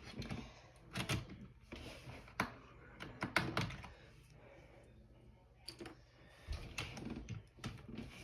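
Keycaps being pried off a computer keyboard with a fork: irregular sharp plastic clicks and clacks.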